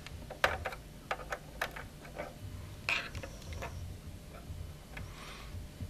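Fingers working at an irrigation controller's terminal block to remove the jumper from the sensor terminals: a scatter of small plastic clicks and taps in the first three seconds, then a soft rustle near the end.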